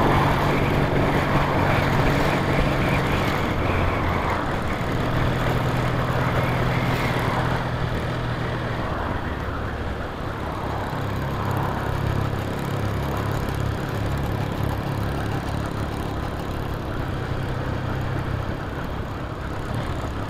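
Motorcycle engine running at a steady cruising pace, heard through a helmet-mounted camera with wind and road noise over it. The wind and road noise is stronger for the first few seconds, then eases.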